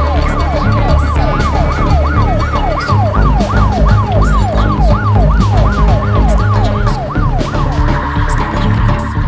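Police siren in a fast yelp, each sweep rising and falling about three times a second, over a techno track's heavy, steady bass beat; the siren stops about eight seconds in.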